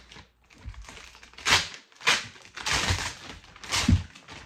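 Clear plastic shopping bag crinkling and rustling in about four loud bursts as a boxed product is worked out of it, with a few soft knocks of the box.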